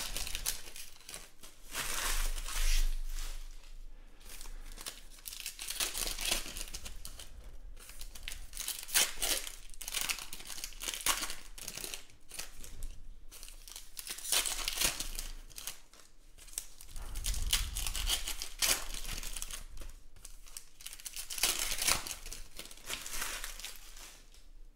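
Foil wrappers of 2020 Panini Elite Extra Edition Baseball card packs being torn open and crinkled by hand, rustling in repeated spells every couple of seconds as one pack after another is opened.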